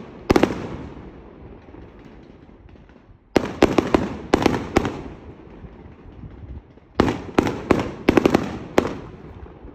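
Fireworks bursting overhead: a single bang at the start, then two volleys of several sharp bangs in quick succession, each bang trailing off in a rolling echo.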